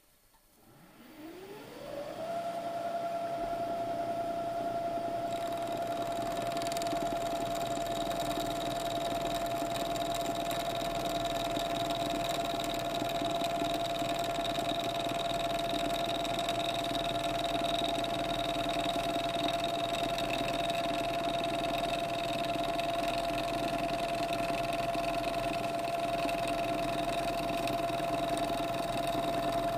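Milling machine spindle spinning up with a rising whine, then running steadily while a corner-rounding end mill takes a heavy, dry, hand-fed cut along the edge of an aluminum part.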